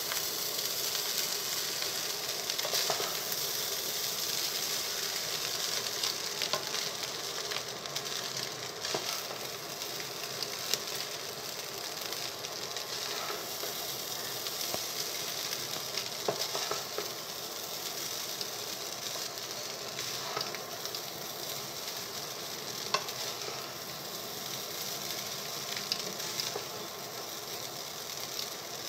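Egg fried rice sizzling in a hot pot while a wooden spatula stirs and turns it, a steady hiss with occasional sharp knocks of the spatula against the pot.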